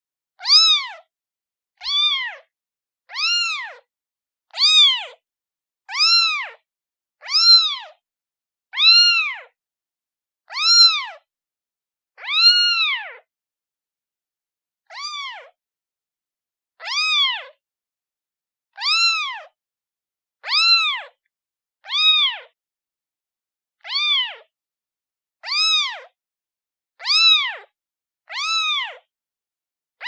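A kitten meowing over and over: short, high-pitched meows, each rising and then falling in pitch, about one every second and a half, with one longer pause about halfway through.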